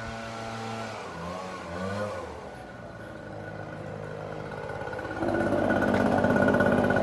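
Lawn mower engine running steadily; its pitch dips and comes back up about a second in, and it gets much louder about five seconds in.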